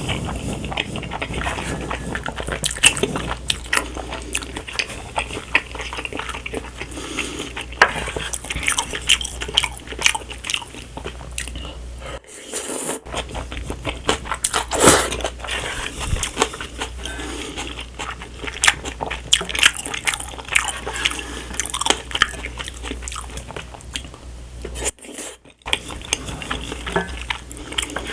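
A person eating spicy stir-fried instant noodles close to the microphone: continuous wet chewing and mouth sounds full of small clicks and crunches, with two short pauses, about twelve seconds in and near the end.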